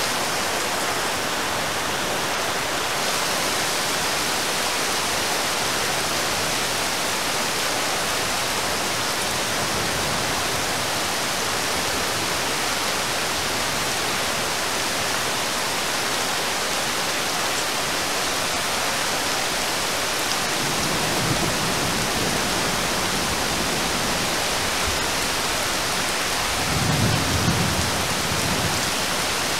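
Heavy rain pattering steadily on a river's surface, an even hiss. Low rumbles of distant thunder come about two-thirds of the way in and again, louder, near the end.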